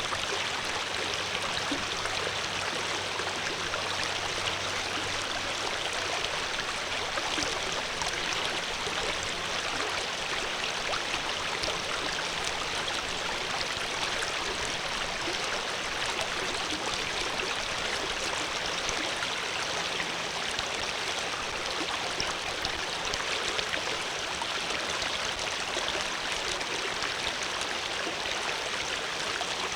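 Water flowing steadily, a continuous even rush and splash like a small stream.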